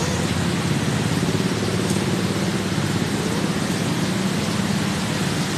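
A vehicle engine idling steadily close by: a constant low running sound with a fine rapid pulse and no change in level.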